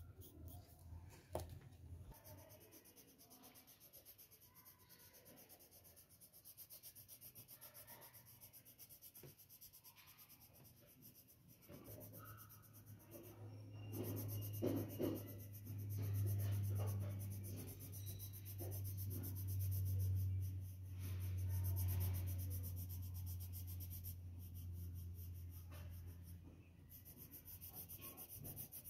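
Pencil shading on paper, quick repeated scratching strokes. A low steady hum comes in about halfway through and fades out near the end.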